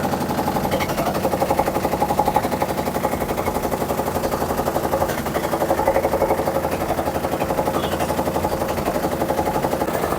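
Samsung top-load washing machine spinning with a loud, fast, continuous rattling knock, many strikes a second, over the steady run of the drum. It is the huge spin-cycle noise that the repairer suspects comes from a broken inner drum hub, not the dampers or suspension springs.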